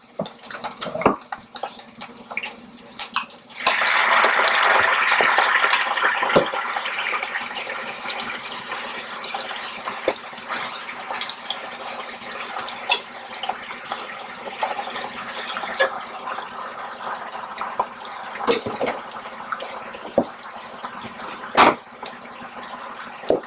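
Tomato sauce ladled into a hot Ninja multicooker pot over sautéed onions and cabbage, sizzling. The sizzle starts abruptly a few seconds in and slowly dies down, with a few sharp clinks of the metal ladle against the pots.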